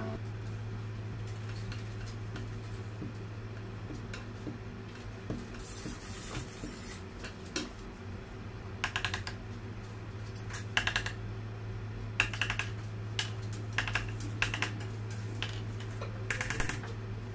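Light clicks and taps of fondant tools and fingers on a hard countertop as fondant is rolled and cut into circles, coming in short clusters over a steady low hum.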